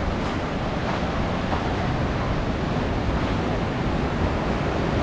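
Rough ocean surf breaking and washing up on a sandy beach, a steady rushing noise.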